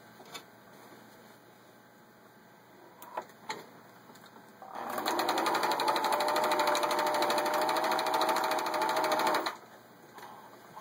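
Vintage Pfaff 297-1 sewing machine stitching one of its built-in decorative patterns. It starts about halfway through, runs at a steady fast needle rhythm for about five seconds and stops abruptly. Before it come two light clicks.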